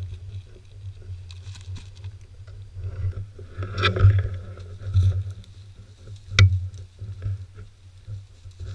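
Rustling and crunching through tall dry grass and brush, with a few sharp snaps about four, five and six seconds in, over a steady low wind rumble on the microphone.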